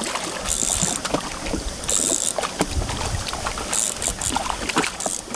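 A hooked fish thrashing at the water's surface, splashing in about three bursts, over a steady low rumble.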